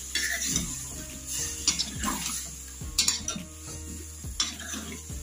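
Steel ladle scraping and clinking against a metal kadhai as whole boiled mangoes, jaggery and water are stirred together, with several sharp clinks spread through the stirring.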